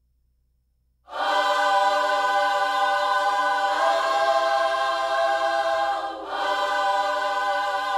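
A choir singing long held chords, starting suddenly about a second in. The chord shifts near the middle, and there is a short break about six seconds in before the singing resumes.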